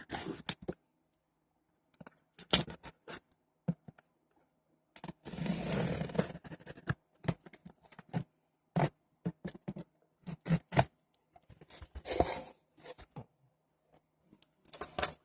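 A cardboard box being cut open and unpacked: scraping and tearing of tape and packaging in irregular bursts, with sharp clicks and pauses between them.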